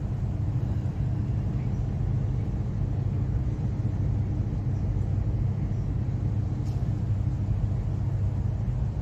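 Cabin noise inside a Melbourne Metro electric suburban train on the move: a steady low rumble from the running gear and motors, with a faint steady hum above it.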